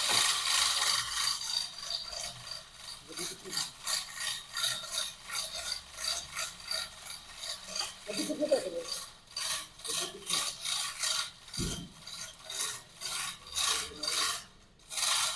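A hand tool worked with quick, repeated rasping strokes, about three a second, metal on metal, during engine removal work. A single low thump comes about two-thirds of the way through.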